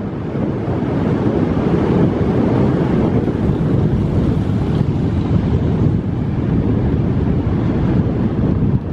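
Steady rush of wind over the microphone mixed with the road noise of a car driving, with no distinct events.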